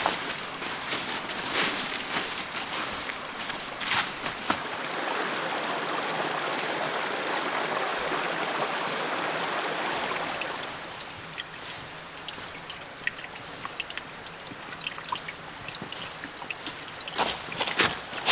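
Steady rush of a forest stream, with a few footsteps on rock. After about ten seconds the water sound drops away and scattered footsteps crunching over dry leaves and stones take over, growing louder near the end as hikers pass close by.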